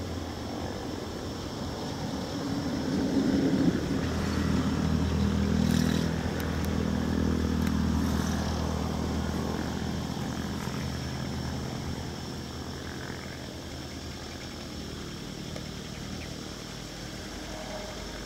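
Four-cylinder diesel engine of a Belarus MTZ-820 tractor running under load as it hauls a loaded cassava trailer, growing louder a few seconds in and then slowly easing off.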